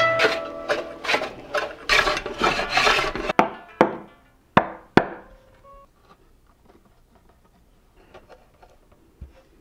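A hand tool scraping or rasping wood in quick strokes, about three a second, for some three seconds, then four sharp knocks on wood, after which it goes nearly quiet.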